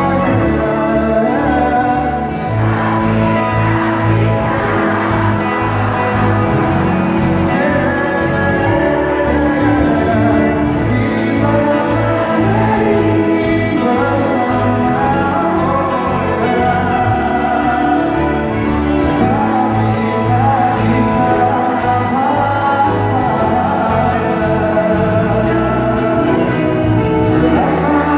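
Live pop band playing a song with singing over it, with a steady cymbal beat.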